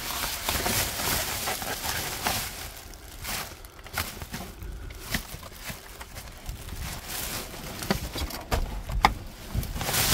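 Rummaging through a dumpster: continuous rustling of items being shifted, with scattered sharp clicks and knocks and one louder knock near the end.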